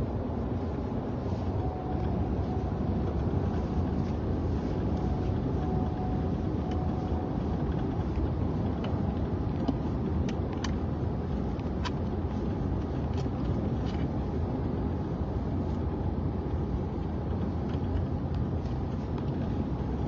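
Steady road and engine noise heard inside a moving car's cabin, with a few faint ticks in the middle.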